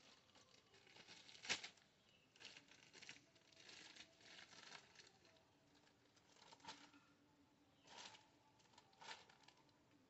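Plastic bag being handled, rustling and crinkling in short spells, with the sharpest crackle about a second and a half in.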